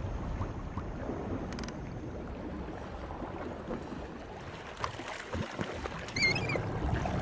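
Steady wind and sea noise with a low rumble from a boat at sea, and a short high bird call a little over six seconds in.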